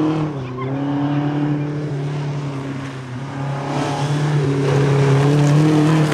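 Rally car engine running hard at high revs on a gravel stage. Its note dips briefly just after the start, then holds steady and grows louder as the car comes closer, with tyres churning loose gravel.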